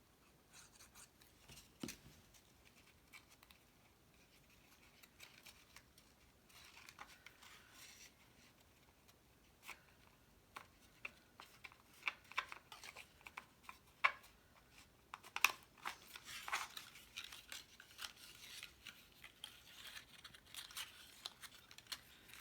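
Cardstock being handled and folded by hand: scattered light taps, creases and short paper rustles, getting busier about halfway through.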